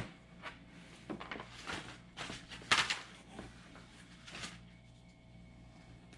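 Acrylic car window deflectors being handled in their cardboard box among paper packing: a string of rustles, light knocks and scrapes, the loudest just under three seconds in, stopping after about four and a half seconds.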